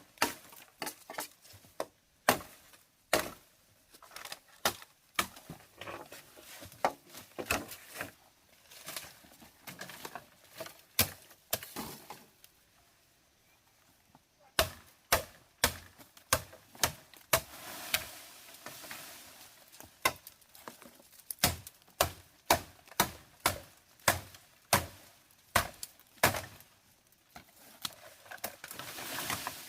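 Chopping: a long series of sharp, irregular strikes, about one to three a second, with a pause of about two seconds near the middle.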